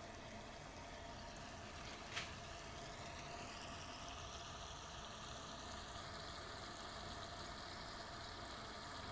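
Faint steady mechanical hum with hiss, with a single sharp click about two seconds in.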